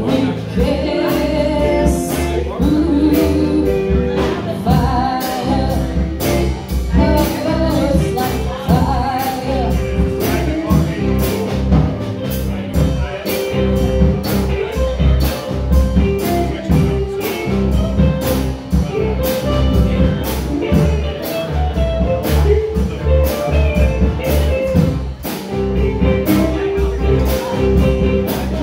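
Live rock band playing amplified: electric guitars, bass guitar and drums keeping a steady beat, with a singer.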